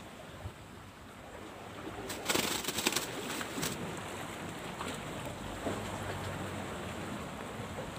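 Steady wash of small sea waves against shoreline rocks, with a burst of crackling and knocking about two seconds in as the recording phone is picked up and handled.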